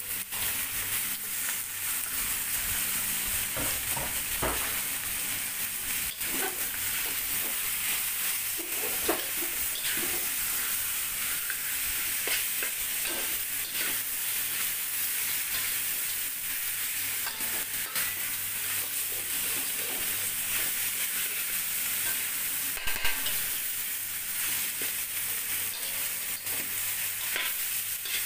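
Chunks of monitor lizard meat sizzling in hot oil and spice paste in a steel wok, stir-fried with metal utensils that scrape and clink against the pan, with a couple of louder clinks.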